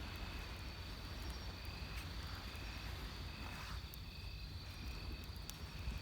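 Insects singing at night: one keeps up a steady high trill while another gives short chirps about once a second, over the low rumble of waves. A few faint pops from the wood fire come in near the middle and end.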